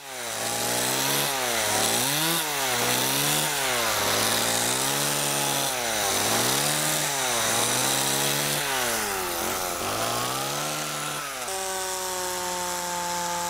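Chainsaw carving into a tree trunk, its engine pitch dipping as the chain bites and climbing back again, over and over. Near the end it runs at a steady pitch.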